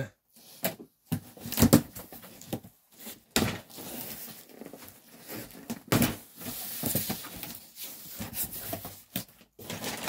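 Cardboard carton and plastic packaging being handled: irregular knocks, scrapes and crinkling rustles as items are taken out of the box.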